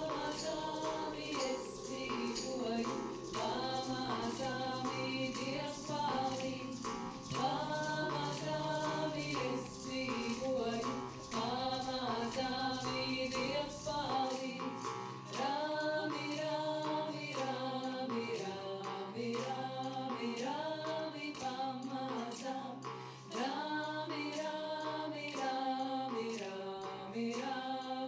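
Ensemble of singers singing a Latvian folk song in harmony, live with a band over a steady percussion beat. The deep bass drops out about halfway through while the voices and beat carry on.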